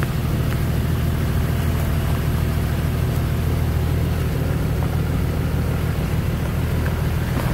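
A vehicle driving along a wet dirt road: a steady low rumble of engine and tyres.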